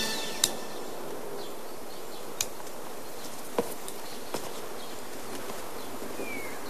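Steady hiss of a quiet room, with a few light clicks about half a second, two and a half, three and a half and four and a half seconds in, and a short falling chirp near the end.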